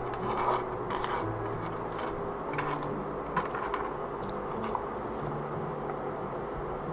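Small sharp plastic clicks and taps, about a dozen scattered over the first five seconds, from mechanical keyboard switches being opened and handled. Quiet background music with low sustained notes runs underneath.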